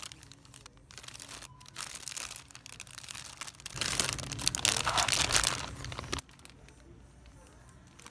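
Crinkling and rustling of plastic-wrapped packages being rummaged through and pulled off a shelf. It is loudest about four to six seconds in and stops suddenly soon after.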